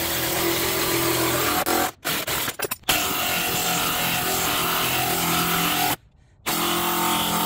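Cordless impact wrench hammering on the forcing screw of a C-frame ball-joint press, driving a new bushing into a lower control arm. It runs in long bursts, with short stops about two seconds in and about six seconds in.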